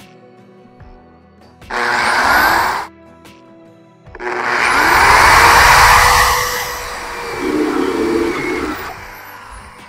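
Corded electric drill boring through the tailgate's painted metal skin with a step bit, in two bursts: a short one about two seconds in, and a longer one starting about four seconds in as the motor spins up, tapering off near the end.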